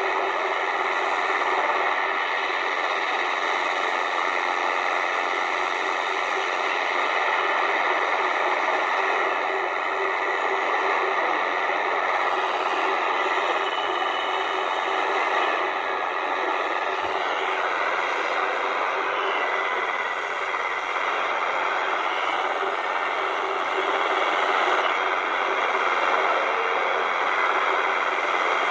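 Tecsun R-909 portable shortwave radio's speaker playing the Chinese Firedrake jammer on 9970 kHz, with the set's DX switch on DX: a dense, steady hiss of shortwave noise with faint steady tones in it, one of which shifts slightly about two-thirds of the way through.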